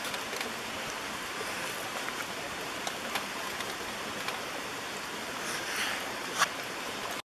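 Steady hiss of outdoor ambience, with scattered light clicks of a wooden spatula against a stainless steel sierra cup as cooked rice is scooped in, and one sharper click near the end.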